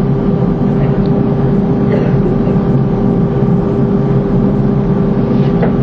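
Loud, steady mechanical hum with a constant droning tone, unchanging throughout.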